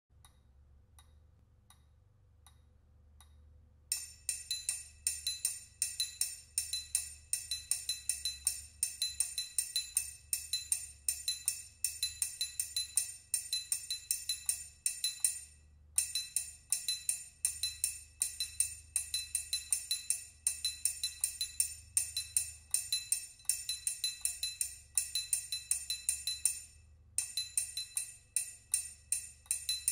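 Orchestral triangle struck with a metal beater near its top in quick, articulated rhythmic patterns, each stroke ringing with high metallic overtones. A few faint ticks come first, and the playing starts about four seconds in, with two brief pauses.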